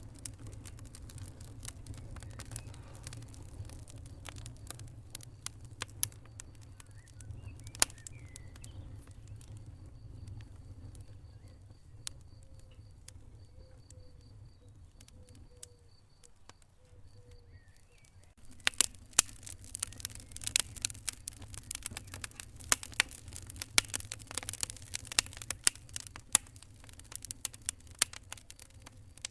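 Wood fire in a fireplace crackling, with sparse sharp pops over a low rumble at first, then a dense run of loud crackles and snaps about two-thirds of the way through.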